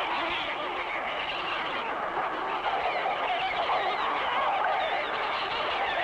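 Massed chorus of short-tailed shearwaters (mutton birds) calling at a nesting colony, a dense caterwauling of many wailing calls overlapping without a break: the birds' after-dark return to their burrows.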